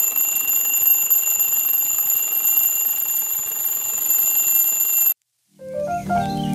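Twin-bell mechanical alarm clock ringing continuously, a steady high metallic jangle of the hammer striking the bells, which cuts off suddenly about five seconds in.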